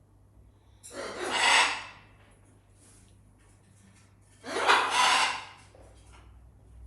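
Two loud, breathy blasts, each about a second long and about three and a half seconds apart.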